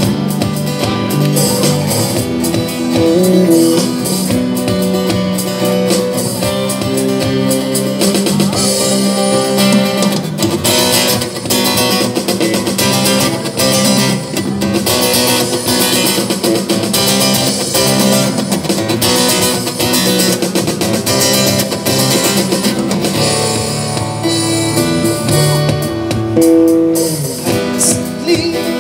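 Live band music: acoustic guitar and electronic keyboard playing a song, with a singing voice over them.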